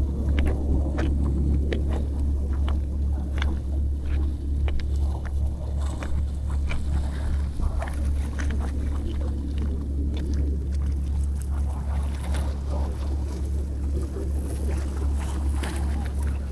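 Small sea waves lapping and splashing against a stone seawall, heard as irregular short splashes and ticks over a steady low rumble.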